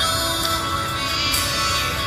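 Music: a song's instrumental backing, playing steadily.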